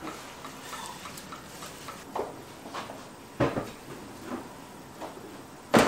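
Silicone spatula stirring a spice paste with water in a wok, with a few soft knocks of the spatula and wok and a sharper knock just before the end.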